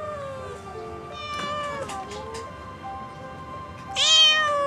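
A white cat meowing several times. The loudest and longest meow comes about four seconds in. Background music plays underneath.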